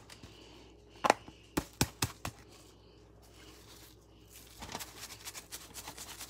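Lemon pepper being shaken from its container into a plastic zip-top bag: several sharp clicks and taps in the first couple of seconds, the first the loudest, then the bag's plastic rustling and crinkling toward the end.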